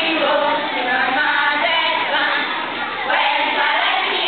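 A group of schoolchildren singing a marching song together as they march.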